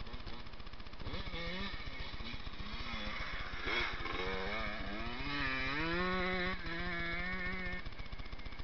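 Dirt bike engine revving as the bike rides up and past, loudest as it goes by about four seconds in. Its pitch then rises and falls with the throttle as it pulls away.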